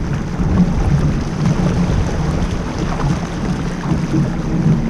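Steady wind buffeting the microphone of a camera mounted on a small sailboat under sail, with water rushing along the hull.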